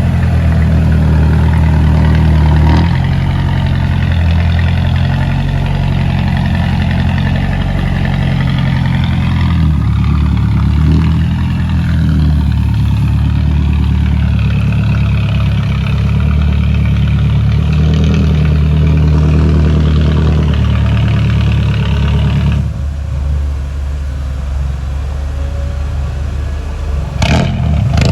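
Heavy diesel engine running hard, its revs rising and falling repeatedly as it works under load. About three quarters of the way in the engine note drops off, and near the end there is a sharp clank.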